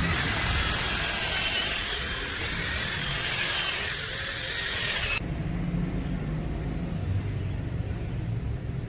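Cordless drill spinning a foam polishing pad on a backing plate against a helmet's painted shell, its motor whining steadily, then stopping suddenly about five seconds in.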